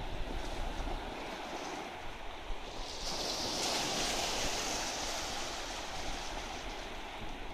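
Small sea waves breaking and washing up the sand in a steady surf hiss that swells about three seconds in.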